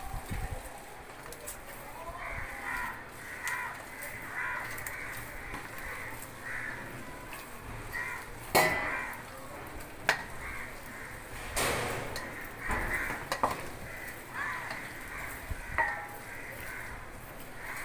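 Hands kneading and punching wheat-flour dough in a steel bowl, with a few sharp knocks against the bowl, the loudest about two-thirds of the way through. Short bird calls repeat in the background.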